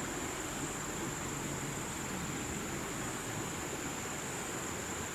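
Steady outdoor ambience: insects droning at one constant high pitch over an even rushing noise.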